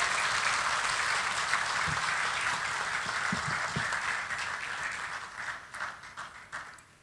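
Audience applauding, thinning out into scattered claps and dying away near the end.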